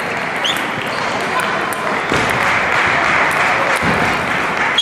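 Table tennis hall sounds: the small sharp ticks of celluloid table tennis balls striking bats and tables, over a steady background of many voices.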